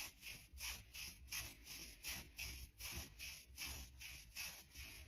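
Nylon tights rubbing against each other in repeated swishing strokes, about three a second.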